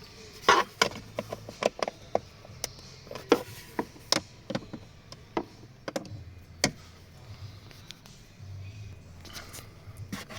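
A series of irregular sharp clicks and knocks, frequent for the first seven seconds and then sparser, from hands working on the plastic cover and clips of a Fiat Ducato's cabin filter housing.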